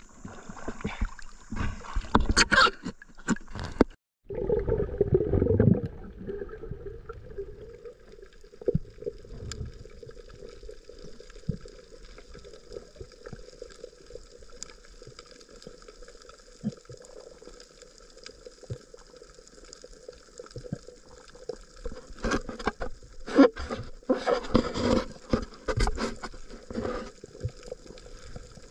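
Water gurgling and splashing, with knocks early on. After a sudden cut about four seconds in, a faint steady hum carries under the water sounds, and the splashing grows louder near the end.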